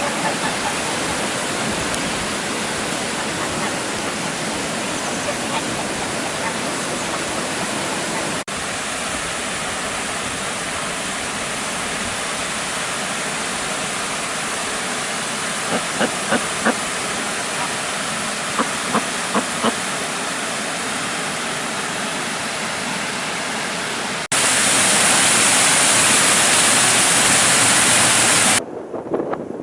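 Waterfall, its falling water rushing in a steady, even roar. The sound jumps abruptly between takes about eight seconds in and again past the twenty-second mark, where it turns louder and hissier for about four seconds before dropping away sharply just before the end. A few short, faint sounds stand out over the rush around the middle.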